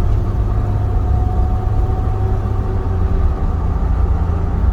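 Steady road and tyre rumble inside a moving 1998 Jeep Wrangler TJ, with a faint steady whine over it. There is no clunking or metal-on-metal noise: the rear Dana 35 differential is running on freshly replaced pinion and carrier bearings.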